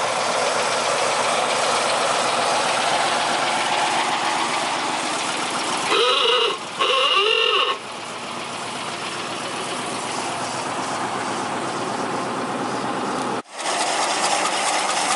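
Vintage sedan's engine running as the car drives past, with two short honks of its old-style horn about six and seven seconds in, each bending up and back down in pitch.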